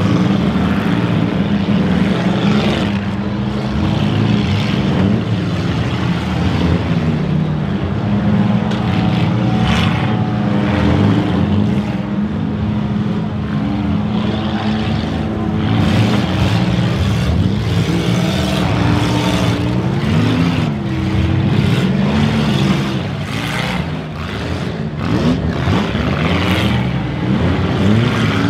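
Several demolition-derby cars, 1990s and newer, with their engines revving up and down over one another, and now and then the knock of a car-to-car hit.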